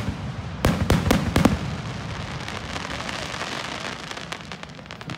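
Aerial fireworks: a quick run of loud bursts in the first second and a half, then a dense crackle of many small pops that slowly fades.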